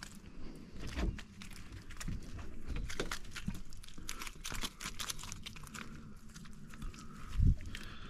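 Gear being handled in an aluminum boat: scattered clicks, knocks and rattles, with a few dull thuds and one heavier thump about seven and a half seconds in.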